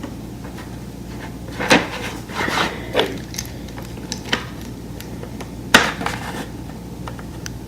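Toy train pieces being handled and set down, giving a few separate sharp clicks and knocks.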